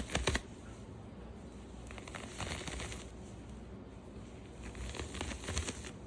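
Sentro 48-needle plastic circular knitting machine being cranked in short spurts: clusters of clicking and clacking from the needles and crank. The sharpest burst of clicks comes at the very start, with two more rattling runs about two and five seconds in.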